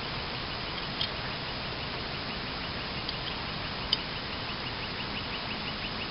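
A few light clicks and taps from small light-fitting parts being handled, over a steady hiss. From about two seconds in there is a faint, rapid, even ticking about five times a second.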